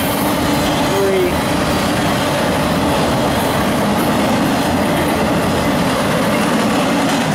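Freight train of empty 90-foot military flatcars rolling past at speed: steady rolling noise of steel wheels on the rails.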